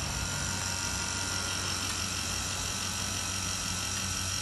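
Refrigeration vacuum pump running with a steady hum, evacuating a split air conditioner's refrigerant circuit.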